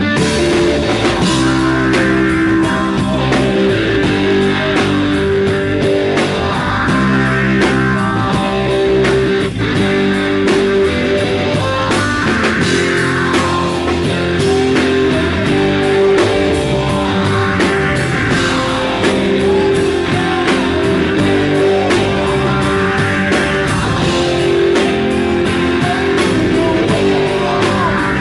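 Rock band playing live: guitar over a drum kit, with sustained notes and a steady beat.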